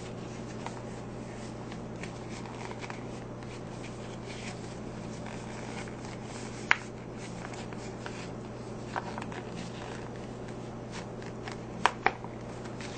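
Plastic sauce pouch crinkling as it is squeezed out over food, with a few sharp little clicks over a steady low hum.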